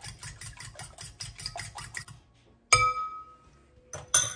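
A fork whisking eggs and milk in a glass bowl, clicking against the glass about five times a second. The whisking stops, then the fork strikes the bowl once with a sharp, ringing glass clink, and two quick clinks follow near the end.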